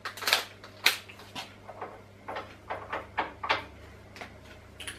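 Irregular sharp metallic clicks and knocks, about fifteen in all, from tools being handled at a round-column mill drill as it is set up for the tapping-size drill. A low steady hum runs underneath.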